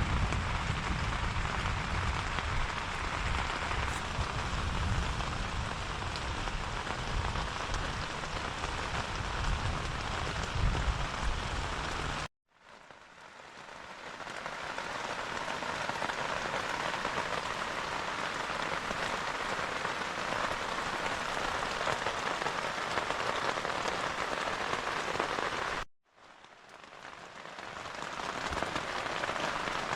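Heavy rain falling in a thunderstorm, a steady hiss of drops, with a low rumble under it for about the first twelve seconds. The sound cuts off suddenly twice, about twelve and twenty-six seconds in, and fades back up each time.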